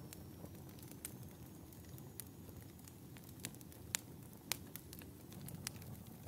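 Wood fire burning in a fireplace: a low, even rumble of the flames with scattered sharp crackles and pops, the loudest two about four and four and a half seconds in.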